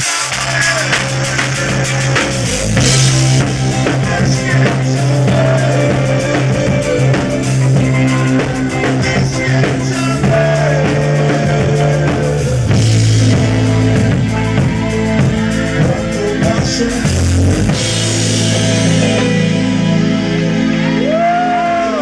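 Live rock band playing: drum kit, electric bass holding steady low notes, and keyboards.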